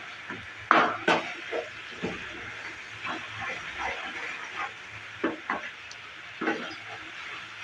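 A spoon stirring and scraping thick pineapple chutney in a pan on the heat, with a steady sizzle under the scrapes. The loudest scrapes come about a second in and again near the end.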